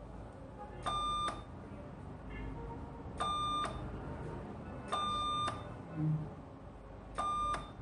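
Medical equipment beeping: a steady high electronic tone about half a second long, sounding four times at intervals of roughly two seconds. A short low thud comes about six seconds in.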